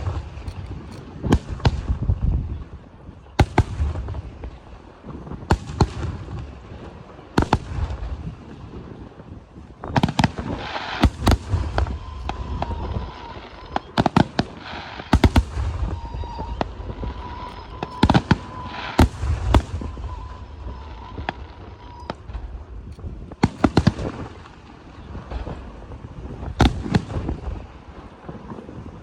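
Aerial fireworks shells bursting with sharp bangs one after another, with a denser stretch of bangs and crackling through the middle.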